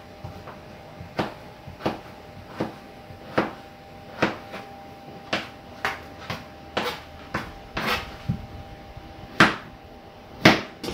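Kitchen knife chopping potatoes into cubes on a cutting board: irregular sharp knocks of the blade striking the board, about one to two a second, with two louder strikes near the end.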